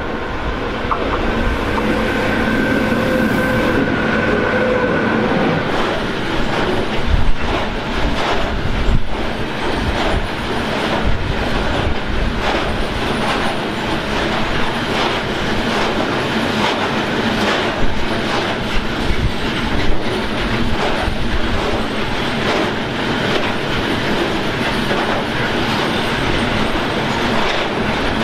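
A train passing close by, its wheels clattering over the rail joints in a dense run of knocks from about six seconds in. In the first few seconds a steady whine of several tones sounds over the rolling noise.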